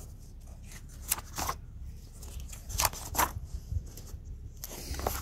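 Pages of a large bound paper manual being turned: several short, crisp rustles of paper over a low steady rumble.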